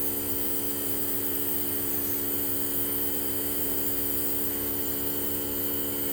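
Compressor nebulizer running with a steady, even electric hum, unchanging in pitch and level.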